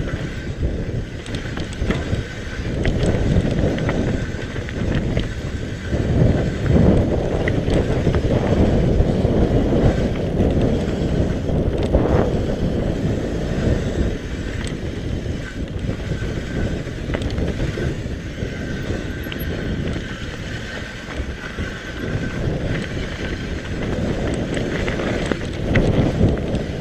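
Mountain bike riding fast down a rough dirt singletrack: wind buffeting the microphone over the continual rattle and jolting of the bike and tyres on the bumpy trail, loudest in the middle stretch.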